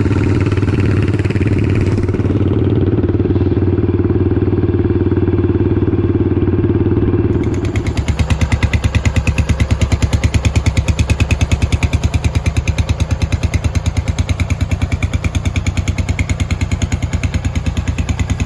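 Yamaha SR400/500 single-cylinder four-stroke running through a slip-on stainless megaphone muffler. About seven seconds in, the steady low drone gives way to a sharper, evenly pulsing exhaust beat.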